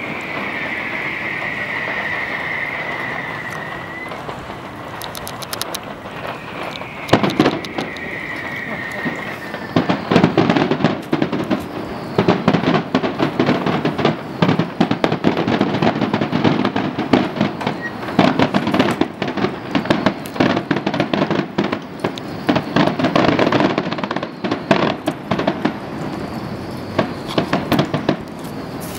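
Fireworks display: two long whistling rockets, each a high whistle lasting a few seconds and falling slightly in pitch, with a loud bang between them. Then a long, dense run of rapid bangs and crackling as shells burst in quick succession.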